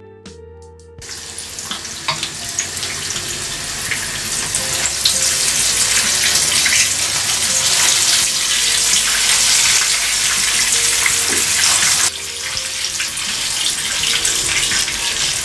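Floured herring fillets frying in hot oil in a pan: steady, loud sizzling and crackling that starts about a second in. It drops briefly about twelve seconds in, then carries on.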